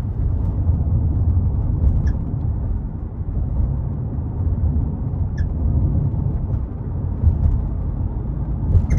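Mazda CX-5 driving over road bumps, with steady low road and cabin rumble and three brief high squeaks. The squeak is short and grating, and comes from the left rear suspension.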